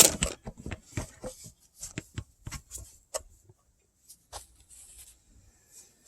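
A small screwdriver and a plastic wiring-harness connector being handled and worked at: a run of irregular light clicks and short scrapes, loudest in the first second and sparser after.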